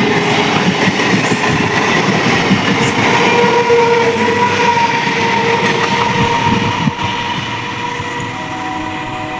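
Indian Railways train running past on the track: a dense rumble and clatter of wheels on the rails with faint steady tones above, easing off a little about seven seconds in.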